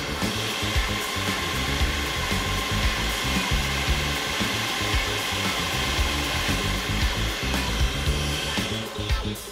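Food processor motor running steadily with a whine, grinding fish fillet and bulgur into kibbeh dough; it winds down near the end.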